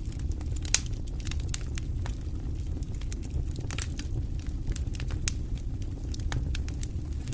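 Fire burning in a fireplace, crackling with frequent irregular sharp pops over a steady low rumble of the flames. The loudest pop comes under a second in.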